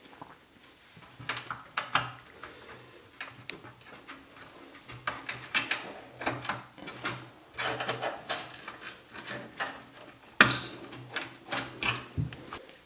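Plastic front cover of a PC case being pried and pulled off: scattered clicks, creaks and knocks as the clips come out, with one sharp snap about ten seconds in.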